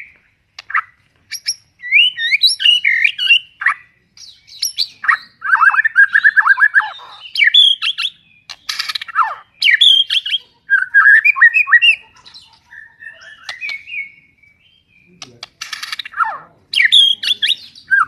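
White-rumped shama singing a loud, varied song in bursts: whistled phrases, fast trills and a few harsh rattling notes, separated by short pauses.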